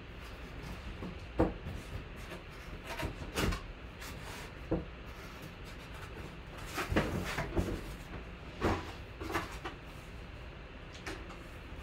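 Irregular knocks, taps and rubbing of objects being handled on a table, one every second or two, the sharpest about a second and a half in and a cluster near the middle, over a low steady hiss.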